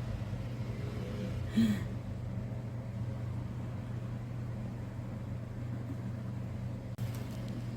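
A steady low hum, with a short rustle about one and a half seconds in.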